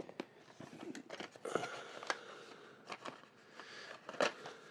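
Hands handling small computer hardware and packaging: a string of sharp clicks and taps with light rustling, the loudest click about four seconds in.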